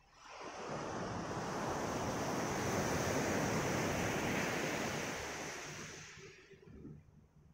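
Sea waves breaking and washing up a pebble shore: one surge of surf swells up, peaks midway and fades away, and the next wave starts to rise near the end.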